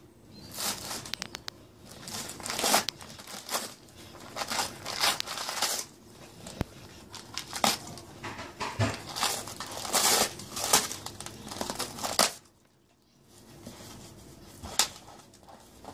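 Wrapping paper crinkling and tearing in irregular bursts as a dog noses into it and pulls it apart, with a short pause about three-quarters of the way through.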